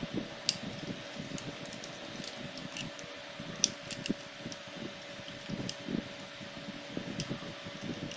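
Plastic toy wolf being handled and folded into a new shape, its hard plastic parts giving a few scattered sharp clicks and soft rubbing over a faint steady hum.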